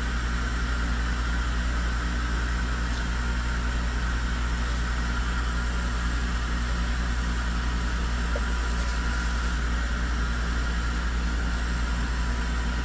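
Steady low mechanical hum of a running machine, unchanging, with an even hiss over it.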